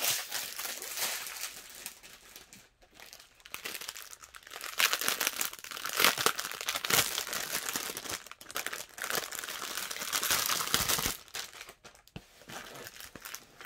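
Clear plastic cellophane wrapping around a bundle of diamond-painting drill bags crinkling and rustling as hands handle and open it, louder in irregular stretches.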